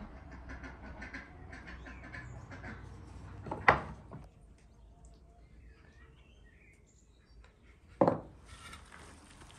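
Food-preparation handling sounds: light taps and rustles as spices are added from small wooden bowls, with two sharp knocks, one a little under four seconds in and one about eight seconds in. Faint poultry calls come in between.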